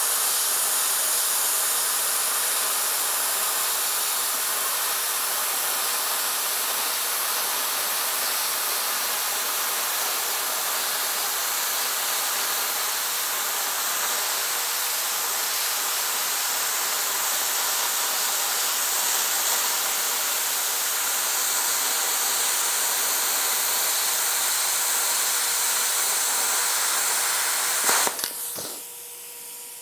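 Plasma cutter cutting through steel sheet: the steady hiss of the arc and air jet, at about 30 amps. It stops near the end with a sharp click.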